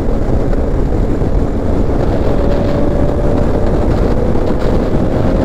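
Wind rushing over the microphone of a moving motorcycle, with engine noise underneath; a faint steady engine tone comes in about two seconds in.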